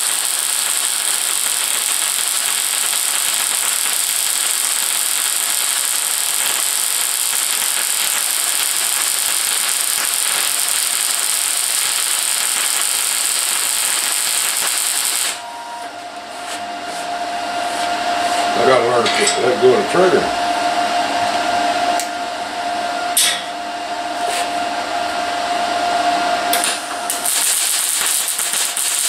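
Wire-feed (MIG) welder laying a bead: a steady, loud hiss of the arc that cuts off sharply about halfway through and starts again near the end. In the gap there is a quieter steady tone and a brief voice-like sound.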